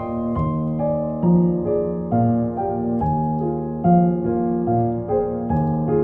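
Gentle solo piano music: a flowing line of single notes over sustained low chords, several notes a second at an even pace.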